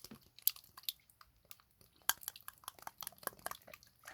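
Water slime being squeezed and stretched by hand, making irregular wet clicks and squelches that come thicker after about two seconds.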